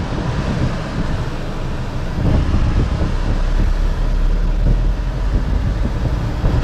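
Inside the cabin of a Tata Punch AMT, the 1.2-litre three-cylinder petrol engine runs with a low, steady hum under the rush of the air-conditioning blower on full. The low rumble grows a little stronger about two seconds in.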